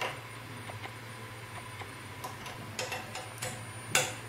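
Small clicks and taps of plastic and metal parts being handled as an electric scooter's rear foot-brake fender is fitted, with a sharp click at the start, a few clicks a little before the end and the loudest about four seconds in.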